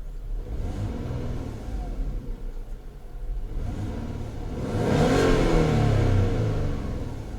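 Peugeot 407 Coupe's petrol V6 engine revved while stationary: a few short throttle blips, then one longer rev about five seconds in that rises and falls back. The owner is testing for a misfire that he says shows only when the engine is pushed hard.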